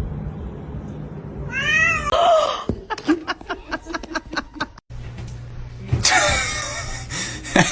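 Domestic cats meowing: one meow about two seconds in, a quick run of short sounds after it, and a louder, rougher drawn-out yowl near the end.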